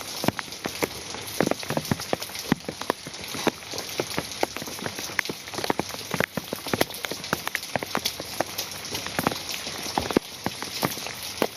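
Rain falling, with many sharp drops striking a surface at irregular moments over a steady hiss.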